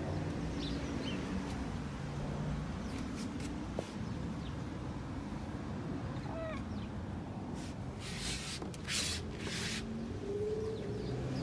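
A few faint, short bird chirps over a low steady outdoor hum, with three brief rustles about eight to ten seconds in.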